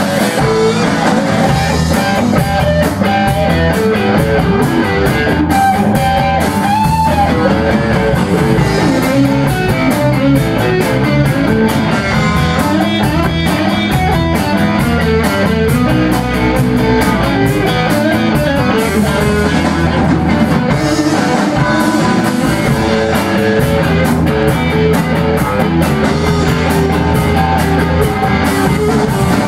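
Blues-rock band playing live without vocals: electric guitars through Marshall amplifiers over a drum kit keeping a steady cymbal beat.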